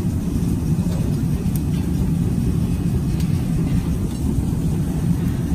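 Steady low roar of a glassblowing workshop's furnaces and burners, even throughout with no strokes or breaks.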